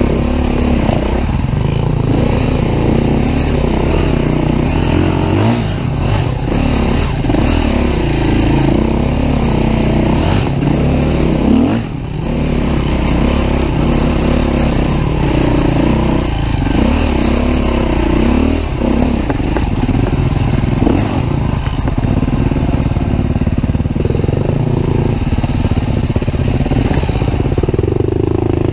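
2013 Husqvarna TE310R's single-cylinder four-stroke engine, ridden off-road, revving up and down constantly with the throttle. About twelve seconds in it briefly drops off before picking up again.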